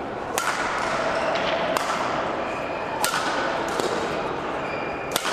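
A badminton rally: a shuttlecock struck back and forth, four sharp hits about a second and a half apart, each ringing briefly in a large hall.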